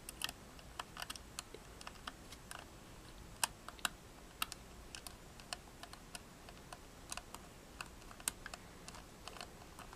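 Small, irregular clicks and ticks of a precision Phillips screwdriver and screws against the metal mounting bracket of a solid-state drive, as the screws are driven back in.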